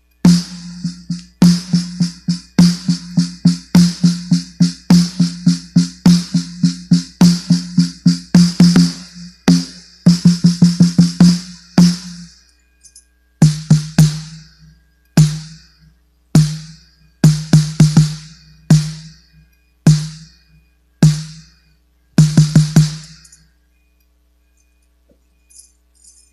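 14-inch snare drum with a red LDH Luen drumhead, played with a stick: a quick run of strokes and rolls for about twelve seconds, then single and doubled strokes about a second apart. Each stroke carries a ringing tone and a snare rattle. The strokes stop a few seconds before the end, and a few light clicks follow.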